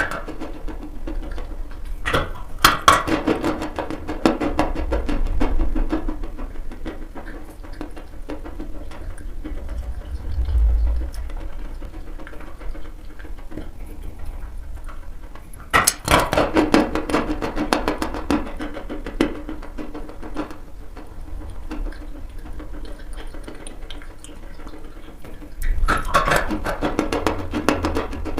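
Crunching and chewing of dry chalk: dense runs of rapid crackles in bouts, about two seconds in, again around sixteen seconds in, and near the end, with quieter chewing between.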